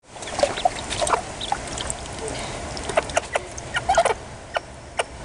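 Ducklings and their mother hen calling in short peeps and clucks, with small splashes as the ducklings paddle in a shallow bowl of water.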